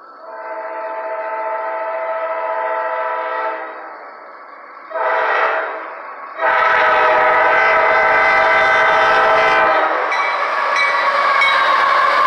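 Horn of a CSX GE CW44AC (AC4400CW) diesel locomotive sounding for a grade crossing: a long blast, a short one about five seconds in, then another long one. Near the end the lead locomotives pass close by with a loud rush of engine and wheel-on-rail noise.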